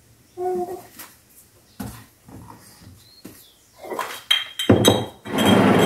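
Food packets and containers being handled in a kitchen cupboard: scattered light knocks and rustling, building near the end into a loud stretch of plastic packaging crinkling and items shifting. A short high-pitched vocal sound comes about half a second in.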